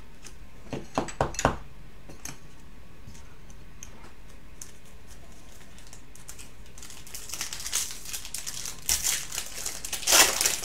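A few sharp taps of cards and plastic holders being handled about a second in. Then a foil trading-card pack crinkles and is torn open, loudest near the end.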